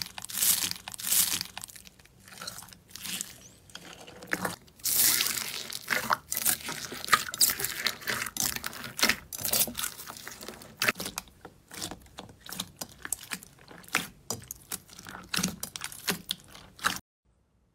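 Blue slime packed with white foam beads (floam) squeezed and kneaded by hand: a dense, irregular run of crunching and crackling pops as the beads are pressed, stopping abruptly shortly before the end.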